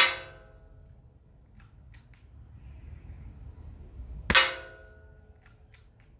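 Two shots from a Weihrauch HW110 air rifle about four seconds apart, each a sharp crack followed by a short ringing tone. A few light clicks follow each shot.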